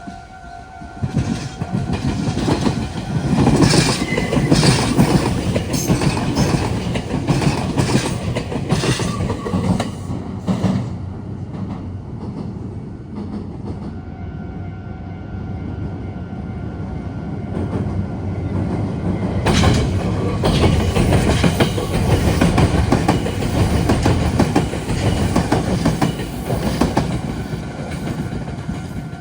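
Two electric commuter trains pass in turn, the first from about a second in for some ten seconds, the second from about twenty seconds in, wheels clacking over rail joints and points. A level-crossing warning bell rings steadily behind them, heard plainly between and after the trains.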